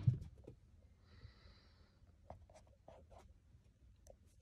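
Faint scratching and light taps from cats moving around and into a plush cat house, with a soft thump at the very start and a soft hiss lasting about a second starting about a second in, followed by a few small ticks.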